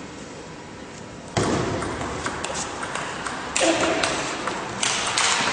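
Table tennis rally sounds: the celluloid ball clicking off bats and table over a steady noise of the crowd in the hall. A loud shout comes about three and a half seconds in.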